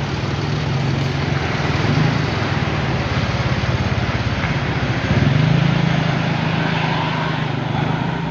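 Small engine running steadily close by, with a fast even pulsing; it gets a little louder and higher about five seconds in.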